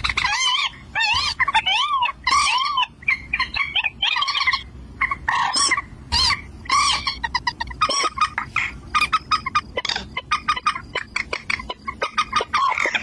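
Birds calling: a continuous run of short calls that rise and fall in pitch, becoming quicker and choppier about two-thirds of the way in.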